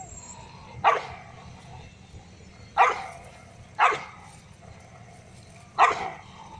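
Street dogs barking: four sharp single barks, a second or two apart, from a pack of dogs quarrelling over mating.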